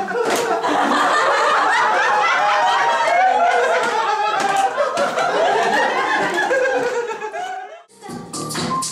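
A group of people laughing and chattering together, many voices overlapping, cutting off suddenly near the end.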